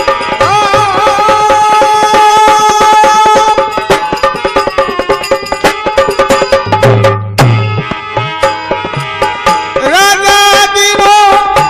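Harmonium holding a sustained melody over a quick hand-drum beat, with low drum strokes sliding down in pitch about two-thirds of the way through. Near the end a man's voice joins with a long wavering note.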